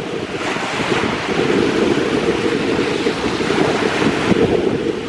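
Whitecap waves on Lake Superior breaking on the shore in a continuous wash of surf, with wind rumbling on the microphone.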